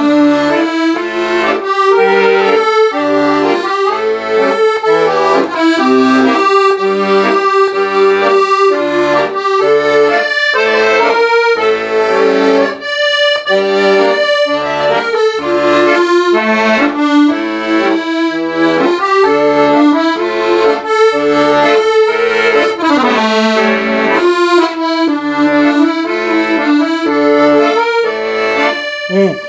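Solo accordion playing a slow trot melody: the right hand carries the tune over a steady, evenly pulsed left-hand bass-and-chord accompaniment.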